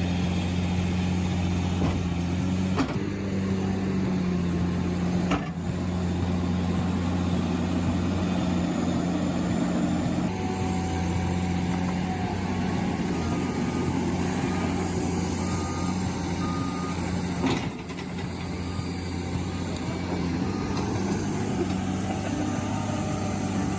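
A heavy machine's engine running steadily under load, with a reversing alarm beeping for a few seconds in the middle.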